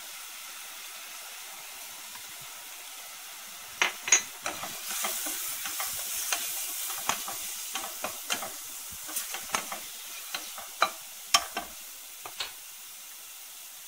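Chopped onions and spices frying in oil in a nonstick pan, sizzling steadily. From about four seconds in a spoon stirs the mixture, with sharp clicks and scrapes against the pan and a brighter sizzle.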